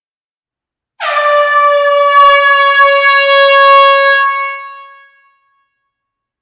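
Air horn giving one long, steady blast of about four seconds that starts abruptly about a second in and fades out near the end.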